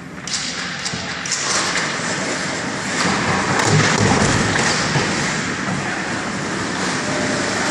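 Ice hockey play in a rink: a steady hiss of ice-rink noise, with a few sharp stick clicks in the first second and a half around the faceoff and a low thump about four seconds in.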